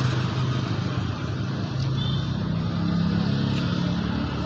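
Road traffic: motorcycle and car engines running past, with one engine's hum rising in pitch in the second half.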